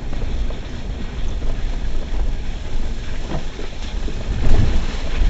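Toyota RAV4 on street tires driving over a snowy dirt trail, heard from inside the cabin: a steady low rumble of engine and tyres, with a louder jolt about four and a half seconds in.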